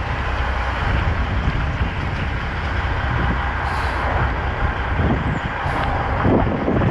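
Semi truck's engine running at low speed as the rig creeps forward, with a steady wet hiss of tyres and rain, heard from a camera mounted outside the cab.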